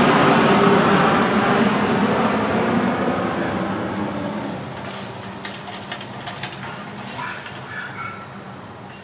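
Garbage truck driving away, its engine and road noise fading steadily into the distance.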